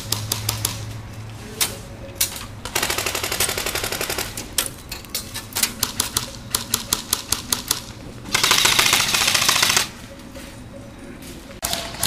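Airsoft rifles firing, in quick runs of single shots and rapid full-auto bursts. The loudest burst comes about eight seconds in and lasts about a second and a half.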